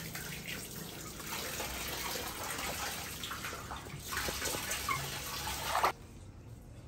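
Water from a wall tap pouring into a plastic basin, with small splashes as a baby monkey paddles in a tub of water. The running water stops suddenly about six seconds in.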